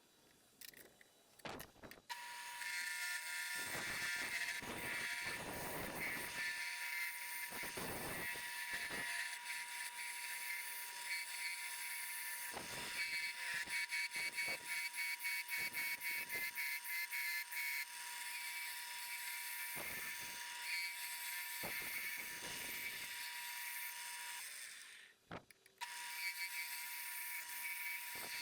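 Small wood lathe running with a steady whine while a turning tool scrapes and cuts a spinning mahogany handle blank in repeated strokes. The lathe starts about two seconds in, stops for about a second near the end, then starts again.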